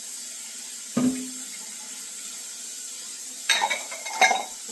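Running water from a kitchen tap into a sink during hand dishwashing, with a dull knock about a second in and two sharp clatters of dishes near the end.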